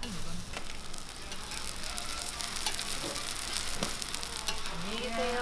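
Korean chive pancakes (buchujeon) frying in oil on a flat round griddle: a steady sizzle with many small crackles and one sharper click near the end.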